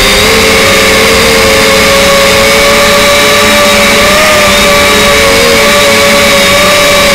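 RC Leading RC126 camera drone's small electric motors and propellers whining loudly, recorded by its own onboard camera. Two close, steady pitches waver slightly as the motors adjust speed in flight, over a constant rushing hiss.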